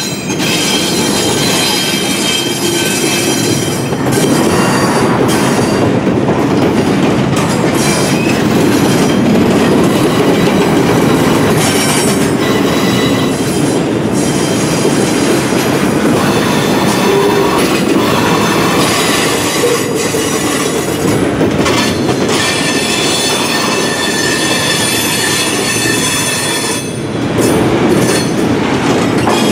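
Double-stack intermodal well cars rolling past on steel wheels, a steady loud rumble of wheels on rail with clacking over the joints and high flange squeal that comes and goes.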